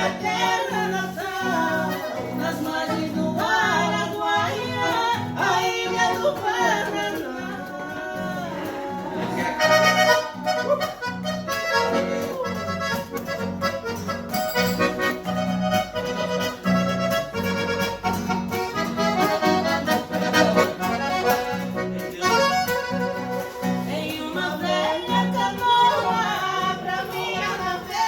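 Accordion (sanfona) playing a lively melody over a steady, rhythmic bass beat.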